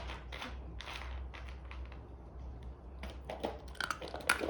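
Irregular short, sharp clicks and taps, a few a second, denser and louder in the last second.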